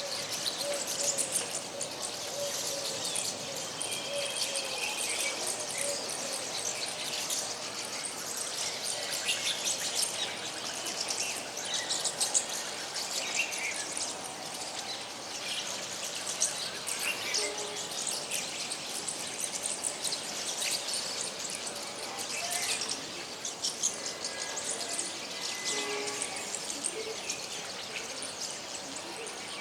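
A flock of small birds chirping and twittering together, a dense overlapping chatter of short high notes.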